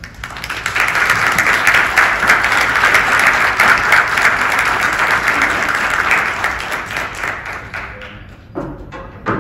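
Audience applause in a theatre hall, swelling in the first second, holding steady, then dying away over the last couple of seconds.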